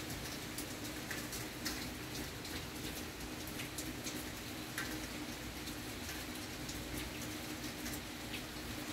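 Steady rain falling during a thunderstorm, with individual drops ticking on a nearby surface.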